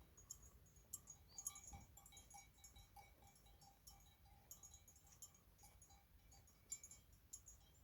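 Faint, irregular clinking of livestock bells on grazing animals, many short rings at a few fixed pitches.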